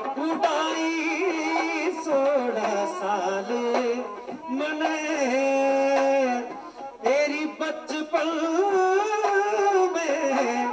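Male voice singing a Haryanvi ragni, amplified through a handheld microphone, with long held notes that bend in pitch, over harmonium accompaniment. The singing breaks off briefly about two-thirds of the way through.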